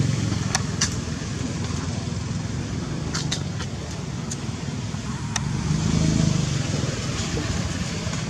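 Steady low outdoor rumble, with a few sharp clicks scattered through it and a slight swell about six seconds in.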